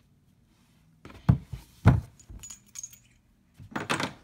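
Handling noise from empty .38 Special brass cases clinking and a steel revolver being set on a tabletop. There are two sharp knocks about a second in, then a few light clicks, and a jingling rattle of loose brass near the end.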